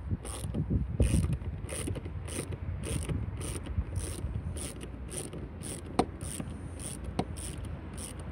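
Small socket ratchet clicking as it loosens a hose-clamp screw on a car's air intake hose, a burst of clicks on each back-swing about twice a second, with two sharper clicks near the end.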